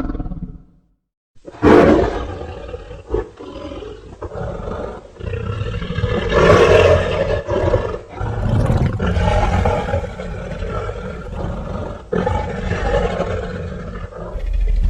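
Godzilla-style kaiju roar sound effects. A loud roar starts suddenly just under two seconds in, after a short silence, and is followed by more long roars that swell and fade.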